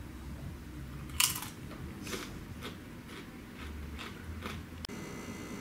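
A tortilla chip bitten with one loud crunch about a second in, then chewed, with crunching about twice a second.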